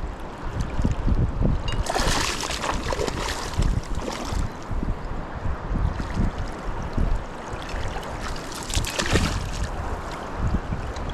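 Wind buffeting the microphone over a rushing river, with two spells of water splashing: a longer one about two seconds in and a shorter one later.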